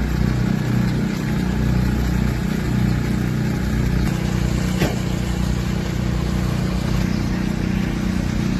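An engine running steadily with a low hum, and a single short click about five seconds in.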